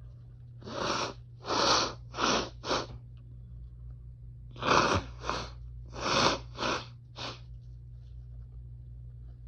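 A fit of sharp sneezes: four in quick succession, then after a pause of about two seconds five more, brought on by chhinkni sneezing powder and grass in the nose.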